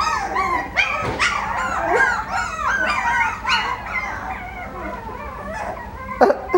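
A litter of Coton de Tulear puppies yipping and whining over and over in overlapping calls, worked up at the sight of other puppies. The calls thin out and grow fainter after about four seconds.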